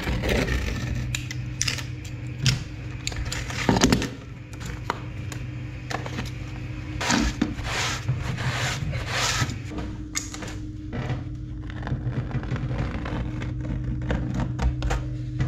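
Old silicone sealant being cut and scraped away from around the base of a ceramic toilet pan: irregular rubbing and scraping with occasional knocks, over a steady low hum.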